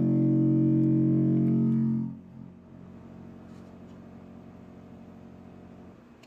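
Steady, distorted low buzz with several fixed overtones from the experiment's sound-vibration driver, the vibration that lubricates the sliding load. It cuts off abruptly about two seconds in, leaving only a faint hum.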